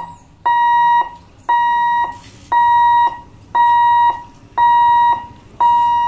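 Level-crossing barrier warning buzzer sounding in a loud, steady, high beep that repeats about once a second, the signal that the boom gates are moving.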